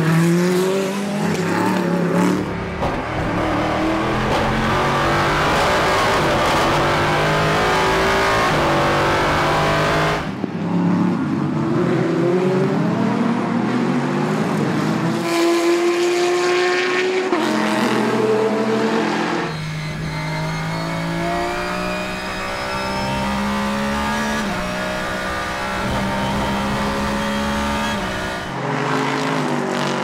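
Several endurance racing cars, LMP2 prototypes and GTE cars, running at full throttle one after another with hard cuts between them. Each engine note climbs through the revs and drops sharply at the gear shifts.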